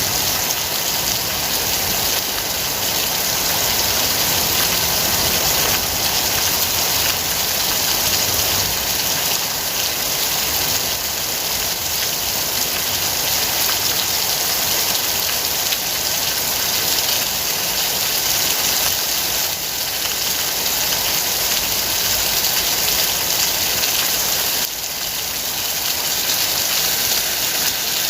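Steady heavy rain falling, a dense even hiss of drops.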